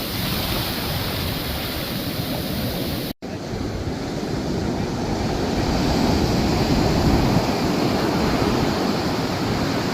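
Ocean surf breaking and washing up a beach, with wind buffeting the microphone. The sound cuts out for an instant about three seconds in, and the surf swells louder around six to seven seconds.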